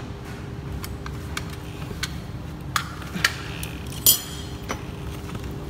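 A few sharp metallic clicks and clinks, irregularly spaced, the loudest about four seconds in with a short ring, over a steady low hum.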